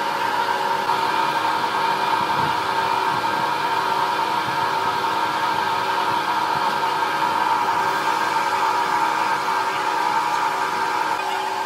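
Old lathe running steadily while a large twist drill bores out the hub of a cast propeller: a continuous mechanical whir with a steady high whine.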